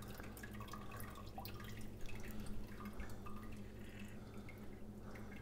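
Faint, irregular dripping of chicken broth from a boil-in-bag rice pouch held up over a pot of broth, over a steady low hum.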